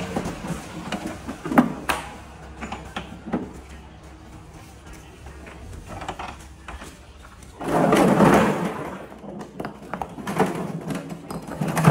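A metal wheelbarrow loaded with broken rock is rolled and then tipped: a loud clatter of stones tumbling out onto the ground about eight seconds in, with a few more knocks of rock and barrow afterwards.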